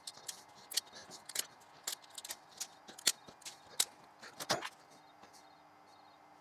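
Irregular sharp clicks and taps of small hard parts being handled, about a dozen over four seconds, then quieter near the end.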